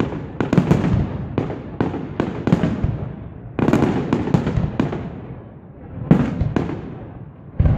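Aerial firework shells bursting in quick succession, each sharp bang trailing off into a rumble. A fresh volley starts about three and a half seconds in, a few more bangs follow around six seconds, and another volley starts just before the end.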